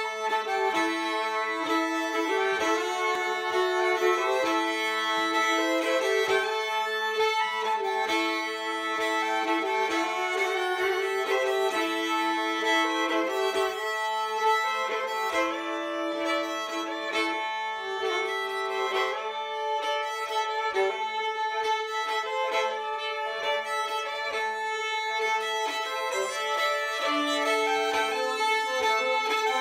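Two fiddles bowed together in an improvised duet. Long held drone notes sound under a melody that steps up and down.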